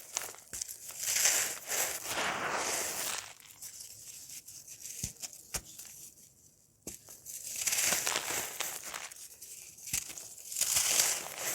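Dry, crunchy cake being crumbled: crisp crackling and crunching in three bouts, with sharp single snaps in the pauses between.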